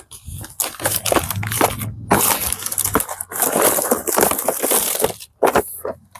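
Packaging of a pack of plastic spring clamps being opened and handled: dense crinkling and crackling, with brief pauses in between.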